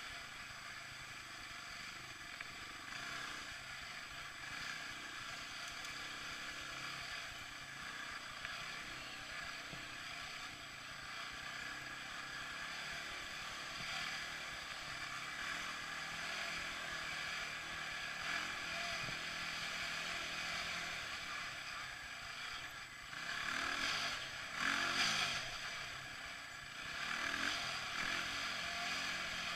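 ATV (four-wheeler) engine running steadily while riding along a dirt trail, with the noise of the moving machine. Near the end it gets louder for a few seconds and its pitch rises and falls as the throttle changes.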